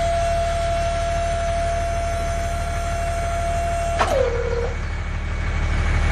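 Small electric motor of a DIY model tractor running with a steady whine over a low, fast-pulsing hum. About four seconds in, a sharp click comes and the whine drops to a lower pitch, holds for about half a second and stops, while the hum carries on.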